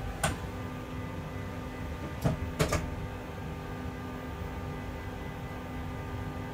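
Freight locomotive's cab hum, steady with several constant tones from its running equipment, broken by a sharp click just after the start and two more clicks close together a little over two seconds in.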